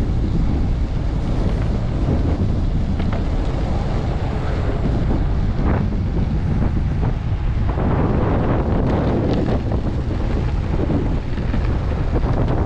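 Strong wind buffeting a GoPro's microphone: a loud, steady low rumble that swells and eases.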